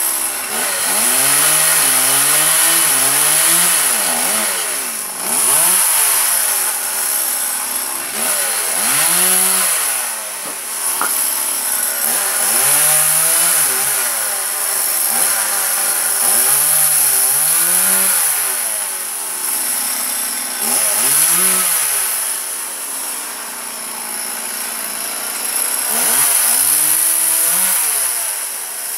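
Small two-stroke chainsaw cutting walnut tree limbs. The engine revs up and drops back again and again, every few seconds, and its pitch wavers while it is held high in the cut.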